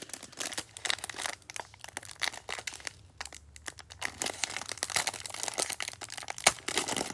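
Clear plastic wrap around a stack of trading cards crinkling and crackling as gloved hands work at tearing it open.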